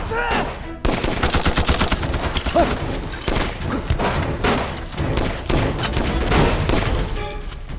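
Heavy gunfire in a battle sound mix: many shots in quick succession, a sustained volley that begins about a second in.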